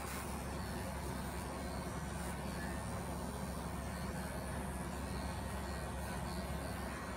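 Handheld electric animal clipper running with a steady hum as it shears the wool from a German Angora rabbit's belly and hind leg.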